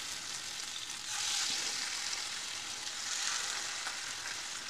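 Marinated carp steaks sizzling as they shallow-fry in hot oil in a pan. The hiss swells twice, about a second in and again after three seconds, as more pieces go into the oil.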